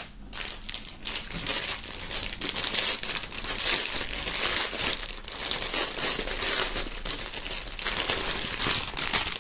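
Thin clear plastic bag crinkling and rustling continuously as hands handle it and work it open to free a folded T-shirt.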